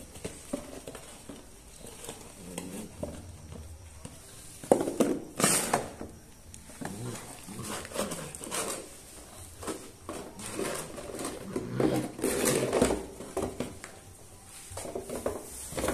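German Shepherd puppy playing with a small cardboard box: scattered knocks, scuffs and rustles of the box and the pup's feet on a mat and concrete floor. The loudest knock comes about five seconds in, and another busy stretch comes around twelve seconds in.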